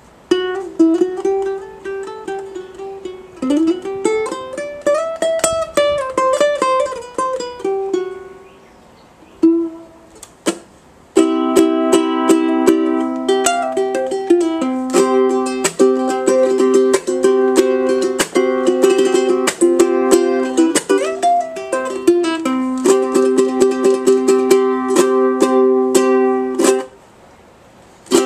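Kamaka HF-3 koa tenor ukulele played solo, mixing strummed chords with plucked melody notes. A few notes slide up and back down in pitch, and the playing breaks off briefly twice.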